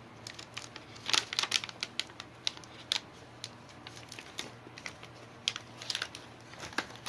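Irregular clicks, taps and rustles of a graphics card and computer parts being handled, with a faint steady low hum underneath.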